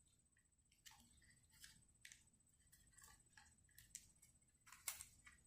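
Faint, irregular clicks and light scrapes of a small screwdriver driving a screw into a laptop hard drive's metal mounting bracket, roughly one a second, the loudest near the end. A faint steady high-pitched whine sits underneath.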